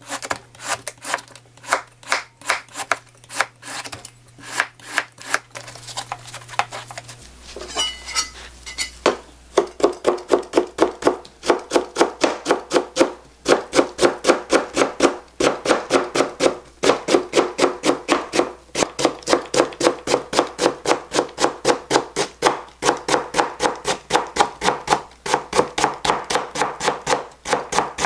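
Kitchen knife cutting Korean radish on a plastic cutting board. For the first several seconds it makes slower, separate slicing strokes. From about nine seconds in it becomes fast, steady chopping, about four strikes a second, as the slices are cut into thin matchsticks.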